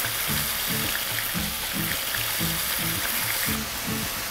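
Soy-marinated beef sizzling in a hot oiled frying pan, a steady hiss. Background music with a steady low beat plays underneath.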